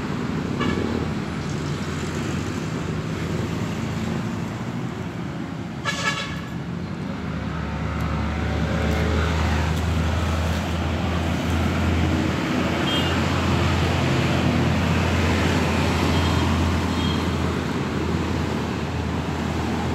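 Street traffic going past, with a short horn toot about six seconds in. From about eight seconds on a heavier low engine rumble grows louder and stays.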